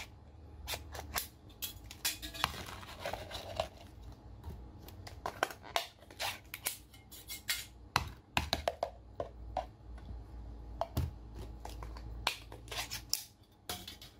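Plastic jar lid opened, then sauced crayfish tails and small shellfish tipped and shaken out of plastic jars onto a plate: irregular clicks, taps and scrapes of plastic and wet food throughout.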